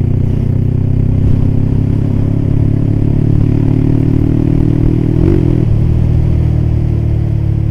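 Yamaha Scorpio 225's single-cylinder four-stroke engine running at a steady cruise through an aftermarket exhaust, a low, even exhaust note with no change in revs.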